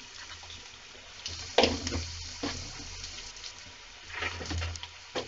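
Chopped onions frying in hot oil in a pan: a steady sizzle with a few louder crackling spurts.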